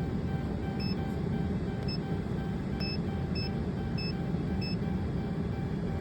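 Six short, high electronic beeps from a scan tool as its buttons are pressed to clear a P0340 camshaft position sensor code, over a steady low rumble.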